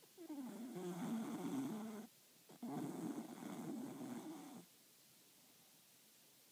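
A Cocker Spaniel snoring in its sleep: two long, rattly snores of about two seconds each, a short pause between them, then quiet.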